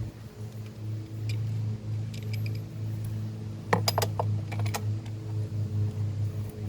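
A handful of sharp metallic clinks of hand tools, bunched together about four seconds in, as the magnetic drain plug is worked in, over a steady low mechanical hum.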